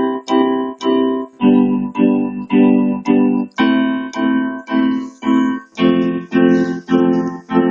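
Instrumental break in a pop-song backing track: an electric keyboard plays short, evenly repeated chords, about two a second.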